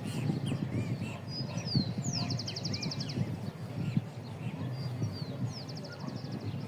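Small birds calling: short rising-and-falling chirps repeated throughout, and a fast high trill about two seconds in and again about five seconds in. Under them runs a steady low rumble with irregular knocks.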